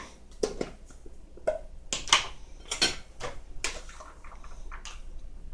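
A kitchen utensil clinking and scraping against a plate in irregular knocks, about eight over a few seconds, as cooked vegetables are served onto slices of ham.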